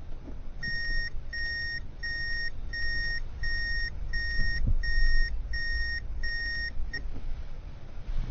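A car's in-cabin reverse-gear warning beeper sounding a steady series of eleven short, even beeps at one pitch, about one and a half a second, then stopping, over the low rumble of the idling car.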